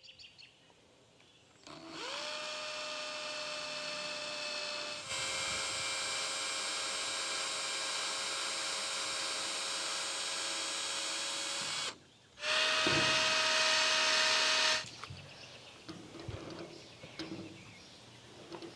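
Electric drill running with a steady whine, dipping slightly in pitch and getting louder as it bears into the work. It stops about twelve seconds in, then runs again for a couple of seconds.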